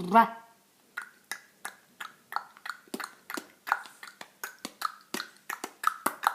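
A person making a run of sharp mouth clicks, about three to four a second, each click a little different in pitch.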